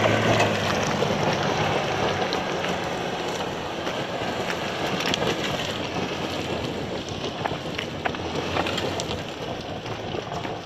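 Toyota 4x4 SUV's tyres spinning and scrabbling for grip on a steep, loose, rocky climb, spraying gravel and stones that clatter down in a dense patter. The engine hum is heard at first, then the sound slowly fades as the vehicle pulls away.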